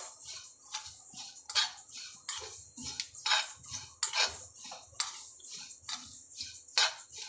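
Metal spoon stirring and scraping sesame seeds dry-roasting in a metal kadai: a rhythmic swish of shifting seeds and scrape of the spoon against the pan, about one to two strokes a second.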